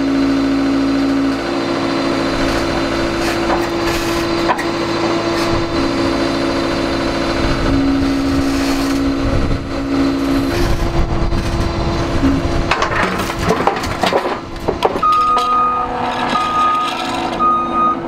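Compact track loader's diesel engine running steadily, with a few knocks as a cant hook works a big log. About three seconds before the end the loader's reversing alarm starts beeping, a short run of high beeps as the machine backs away.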